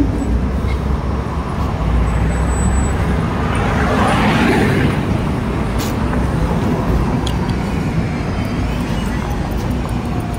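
Street traffic on a city road with a steady low rumble from the bicycle rolling on the sidewalk; a passing vehicle swells up and fades about four to five seconds in.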